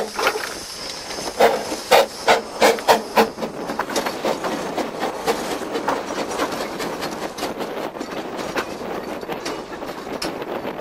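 Narrow-gauge train on the move: a quick run of about six loud sharp beats, then a steady rattle and clatter of wheels and carriages on the rails.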